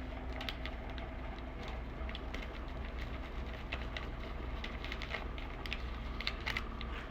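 Spoon clicking and scraping in a small container while stirring sugar-free pudding mix into Greek yogurt: irregular light ticks, a few a second, over a faint steady hum.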